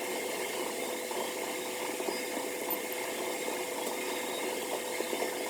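Steady whir and hiss of a small blower motor, with a faint steady hum in it.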